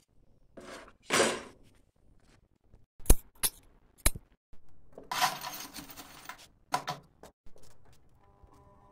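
Steel bar stock being handled: a scraping swish, then several sharp metal clanks, then a longer scraping rattle.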